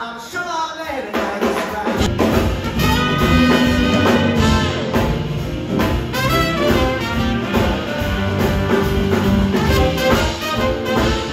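Small jazz band with horns and upright bass playing live. The music is softer at first and the full band comes in louder about two seconds in.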